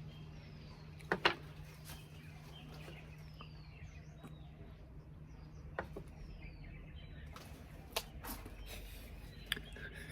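Quiet room with a steady low hum, faint bird chirps made of short falling notes, and a few sharp knocks or clicks of handling, two close together about a second in and a few more near the end.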